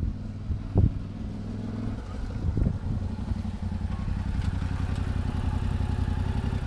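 Yamaha Ténéré 700 parallel-twin motorcycle engine running at low revs as the bike rides up slowly and comes to a stop, growing louder as it nears.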